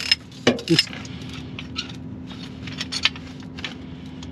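Metal hand tools clinking and clicking against bolts and each other: a few sharp clicks in the first second, then scattered lighter ticks.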